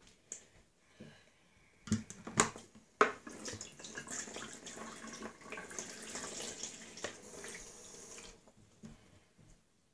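A couple of sharp knocks, then a bathroom sink tap running steadily for about five seconds before being shut off.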